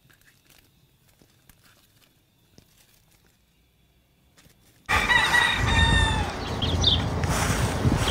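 Near silence for about five seconds, then a rooster crows once, loud and sudden, over a steady low rumble. A few short high bird chirps follow near the end.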